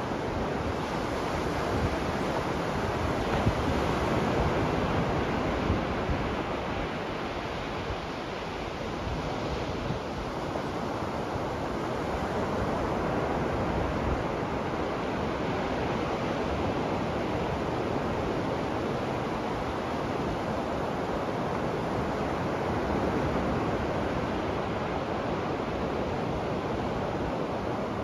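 Ocean surf breaking and washing onto a beach: a continuous rush of waves that slowly swells and eases every several seconds.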